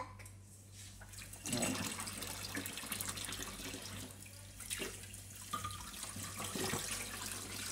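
Kitchen tap running into a sink, a steady hiss that starts about a second and a half in, with a few small knocks.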